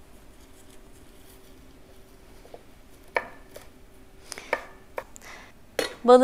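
Chef's knife chopping fresh herbs on a wooden cutting board: a handful of sharp knocks of the blade against the board, scattered through the second half.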